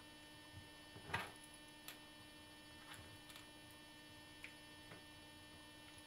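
Steady electrical hum with a few faint, light clicks; the loudest comes about a second in. The clicks are the small parts of a Mighty Mouse scroll-ball assembly being handled while its tiny magnetic rollers are fitted back into place.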